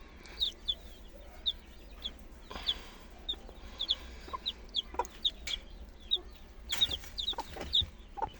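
Newly hatched chicken chicks peeping: many short, high chirps that slide downward, repeated irregularly.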